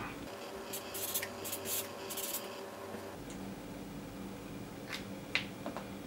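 Marker pen writing on paper: a quick run of short scratchy strokes for about two seconds, then faint room tone with a steady low hum and a couple of soft clicks near the end.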